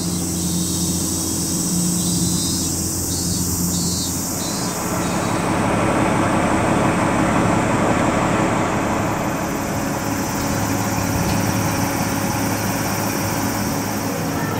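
Bus engine running with a steady low hum for the first four or five seconds, then a louder, even rush of vehicle noise for the rest.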